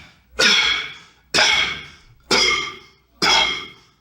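Four beatboxed cough snares, about one a second. Each is a sharp cough-like hit that trails off into a loud whisper.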